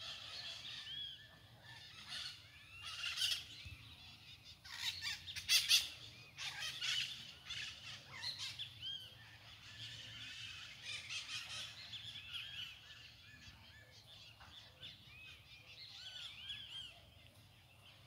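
Many birds calling and chirping at once in the trees: a steady mix of short high chirps, with louder harsh, screechy calls about three seconds in and again around five to six seconds.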